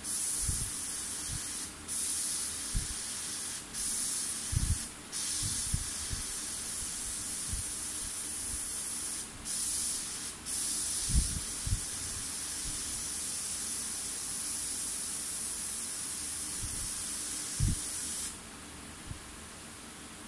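Gravity-feed airbrush spraying paint: a steady high-pitched air hiss, broken by a few brief pauses as the trigger is let off, that stops about eighteen seconds in. Soft low bumps from handling come and go beneath it.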